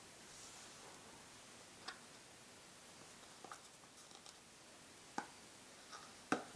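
A handful of light clicks and taps from a small plastic container and a silicone spatula knocking against a glass bowl, as gelatin is tipped in and stirred. The sharpest click comes near the end.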